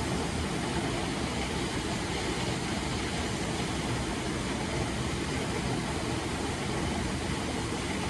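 Waterfall pouring into a rocky plunge pool: a steady, even rush of falling water.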